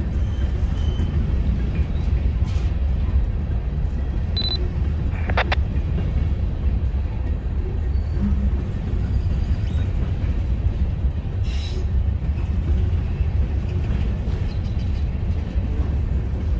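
Covered hopper cars of a BNSF grain train rolling past at close range: a steady low rumble of steel wheels on rail. A brief high squeal about four seconds in, followed by a short metallic clank.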